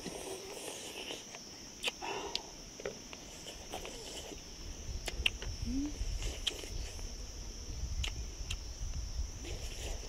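Steady high-pitched drone of insects, with scattered small clicks and knocks over it and a low rumble from about four seconds in.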